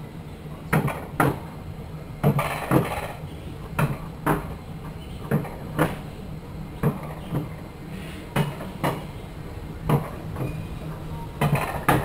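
Rail bobsled cart rolling down its steel-rail track with a steady low rumble, its wheels knocking in pairs about half a second apart, roughly every second and a half.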